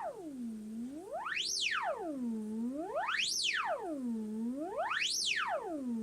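An electronic test tone played through a 12AX7 tube overdrive and TDA8932 class-D practice guitar amp. It sweeps smoothly from a low pitch up to a very high whistle and back down, about once every 1.8 seconds, with overtones stacked above it.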